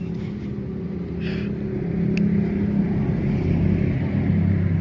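An engine running steadily with a low drone that grows louder about two seconds in, and one short high click.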